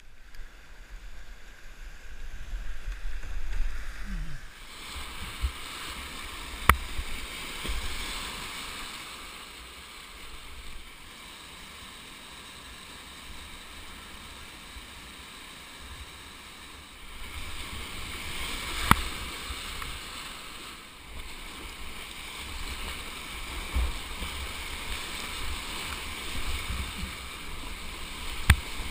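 Whitewater rapids rushing and splashing around a kayak, setting in about four seconds in after a calmer stretch. Three sharp knocks stand out, at roughly seven seconds, nineteen seconds and near the end.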